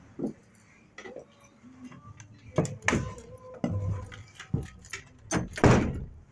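Irregular knocks and clanks with light rattling, the loudest a bit over five seconds in.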